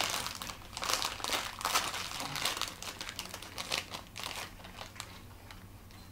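Smith's potato chip bag crinkling densely as it is handled and pulled open, then settling to a few light rustles after about four and a half seconds.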